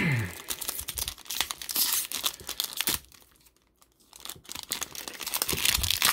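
Wrapper of a 2002 Donruss baseball card pack being torn open and crinkled by hand. It crackles in two spells with a short lull about halfway through.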